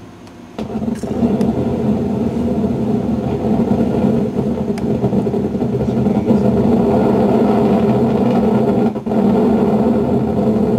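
EMG monitor's speaker buzzing and crackling loudly as the wired injection needle picks up the eyelid muscle contracting on a squeeze, guiding the Botox injection. It starts about half a second in and dips briefly near the end.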